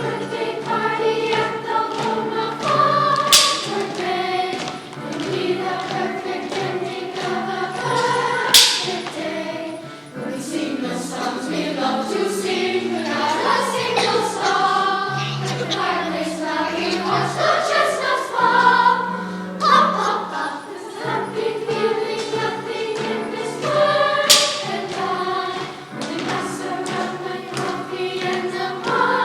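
Youth choir singing a song, with a sharp percussive hit cutting through three times.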